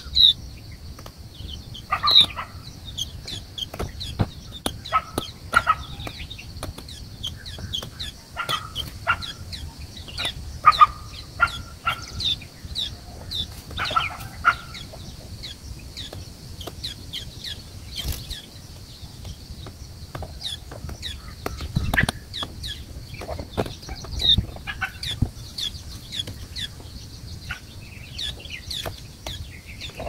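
Birds calling: many short, high chirps repeated all through, with a lower call given in small groups of two or three during the first half. A low rumble sits underneath.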